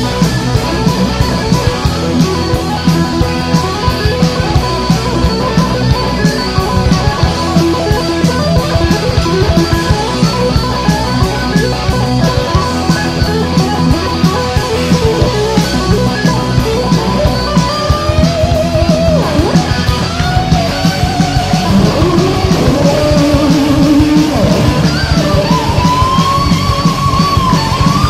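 Heavy metal band playing a demo track: electric guitars and bass over drums with cymbals. About two-thirds of the way in, a lead line with pitch bends comes in above the riff.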